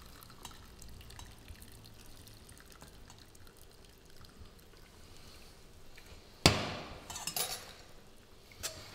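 Chicken stock trickling from a stainless steel pot through a fine-mesh sieve into a steel bowl. About six and a half seconds in comes one sharp, ringing metal clank of the steel pot and sieve against the bowl, followed by a few lighter clinks.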